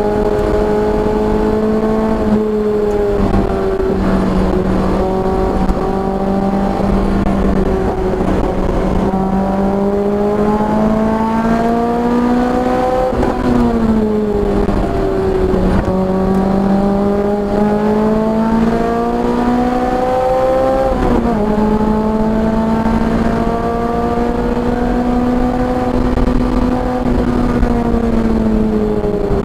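Car engine at speed on a race track, the pitch climbing slowly as it pulls and then easing off. Twice the pitch changes quickly, about halfway through and again about two-thirds through, as at gear changes.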